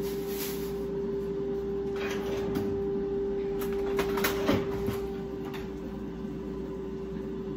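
Steady one-note hum of a running kitchen appliance, with light handling noise: a few knocks and clatters about four seconds in, as utensils and ingredients are picked up.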